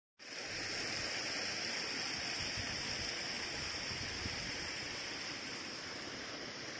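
Steady, even high-pitched chorus of insects calling, with an irregular low rumble of wind on the microphone.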